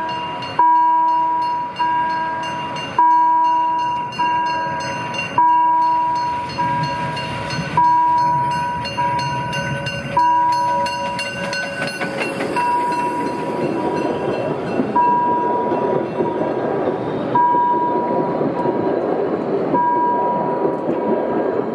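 A level-crossing warning bell ringing in even strokes, a little more than one a second with every other stroke louder, as the narrow-gauge steam train hauled by Saxon 99 608 approaches. From about halfway the rumbling and rattling of the locomotive and its carriages rolling past close by grows under the ringing.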